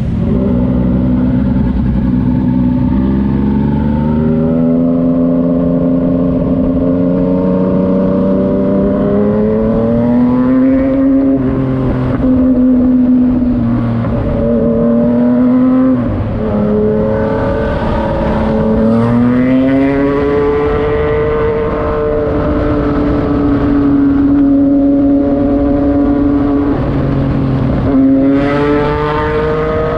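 Yamaha MT-09's three-cylinder engine running through a Racefit Slash aftermarket exhaust, its note rising and falling in pitch with the throttle, with a couple of sudden drops.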